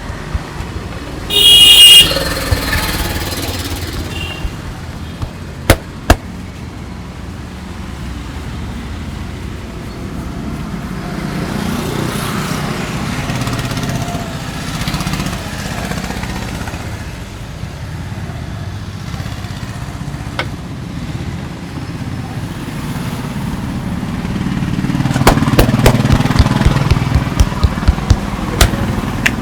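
Street traffic runs throughout, with a loud vehicle horn blast about a second and a half in and two sharp clicks around six seconds. Near the end comes a run of quick, sharp hand taps from the barber's massage.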